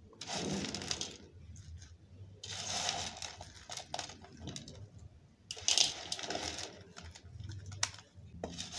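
Dried omena (dagaa), small dried fish, rustling and crackling as they are sifted and picked over by hand on a plate, in several short bouts with small clicks between.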